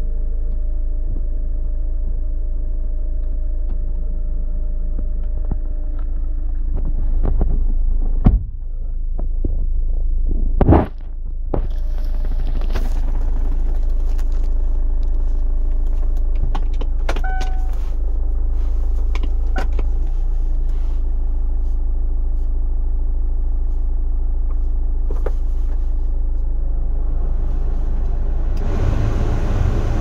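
GM Daewoo Winstorm's engine idling, a steady low hum heard from inside the cabin. Two sharp knocks come about a third of the way in, and a short beep a little after the middle.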